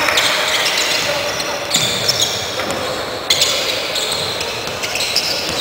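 Basketball game on a hardwood court in a large arena: the ball being dribbled, with sharp knocks about two and three seconds in, and short high sneaker squeaks scattered throughout.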